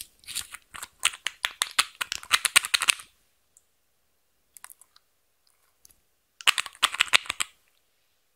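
Quick runs of small plastic clicks and rattles from cosmetic bottles and a tube being twisted open and squeezed by hand. There are two bursts: one over the first three seconds, and a shorter one about two-thirds of the way in, with a few lone clicks between.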